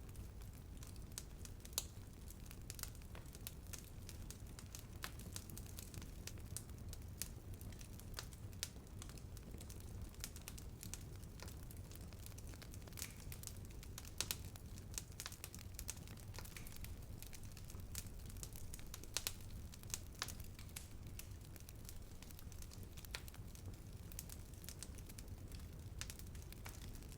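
Wood fire burning steadily, with frequent irregular crackles and pops over a low rumble.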